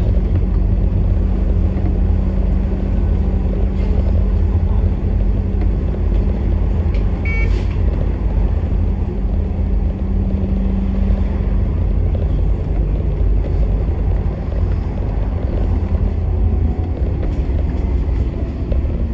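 Bus engine running and low road rumble inside a moving bus, the engine's steady hum dropping lower about twelve seconds in. A short high-pitched tone sounds about seven seconds in.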